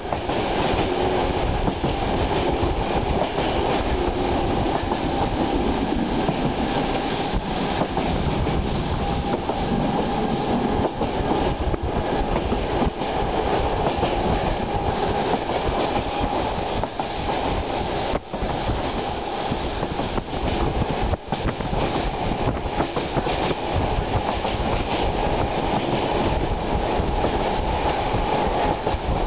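Train running steadily at speed, the continuous rumble of its wheels on the rails.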